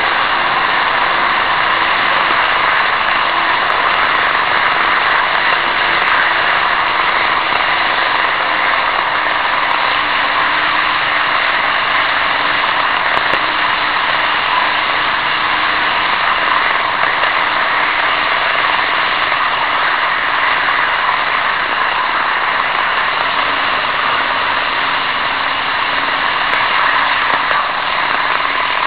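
N-gauge model trains running on the track, picked up by a keychain camera riding on a moving freight wagon: a steady rushing rattle of wheels on rail with a faint wavering motor hum underneath.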